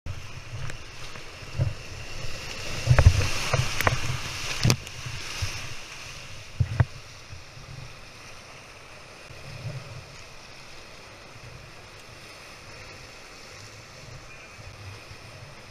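Whitewater rushing and churning around a kayak in a weir rapid, with wind buffeting the microphone. Several sharp knocks come in the first half, then the water settles to a steady rush.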